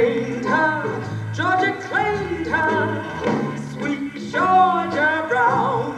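A recorded song with a singer holding long, wavering notes over a steady bass accompaniment.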